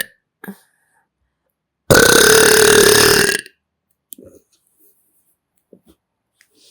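A person belching loudly close to the microphone: one long burp of about a second and a half, starting about two seconds in. The end of an earlier burp is heard at the very start, and faint mouth noises follow the long one.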